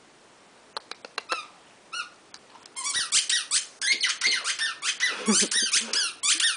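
Squeaky toy ball squeezed in a small dog's jaws as it chews and carries it: a few faint squeaks about a second in, then a rapid run of loud, high squeaks, about four a second, each dropping in pitch.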